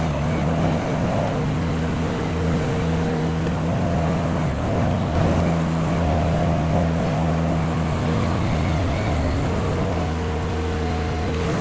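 Mini skid steer engine running steadily at raised throttle while the loader works gravel, its pitch wavering slightly with the load.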